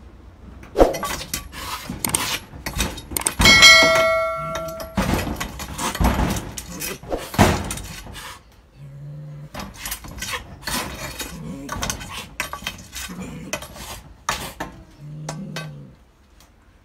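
Irregular clattering knocks and scrapes of a stick jabbed at a cornered cat as it swats back, with one metallic clang ringing for about a second about three and a half seconds in.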